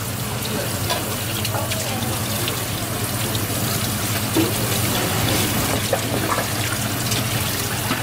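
Water spraying steadily from a hose spray nozzle onto a whole parrotfish on a plastic cutting board, rinsing it, with a few small clicks and splashes along the way.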